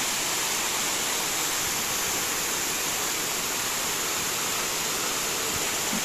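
Waterfall: water pouring over broad stepped rock ledges in a steady, even rush.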